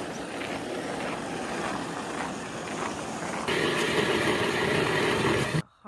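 Footsteps in snow, then a battery-powered ION electric ice auger drilling through lake ice: a steady motor hum with a loud hiss, starting suddenly about three and a half seconds in and cutting off abruptly near the end.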